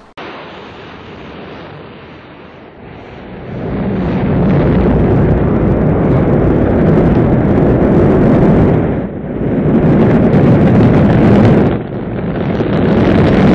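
Rocket launch roar: a rushing rumble that swells sharply about three and a half seconds in to a loud, steady roar, dipping briefly near nine and twelve seconds.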